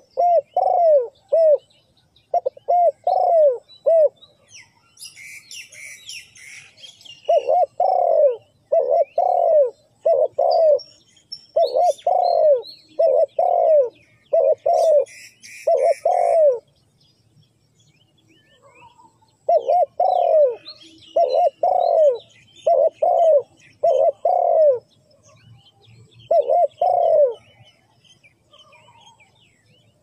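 Spotted dove cooing in repeated phrases of several coos, each note rising then falling in pitch, with pauses of a second or more between phrases.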